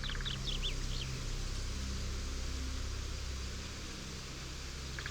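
Forest ambience: a few quick songbird chirps in the first second, over a steady low hum and hiss.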